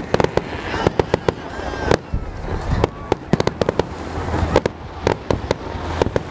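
Aerial fireworks display: a rapid, irregular run of sharp bangs and cracks from bursting shells, several a second.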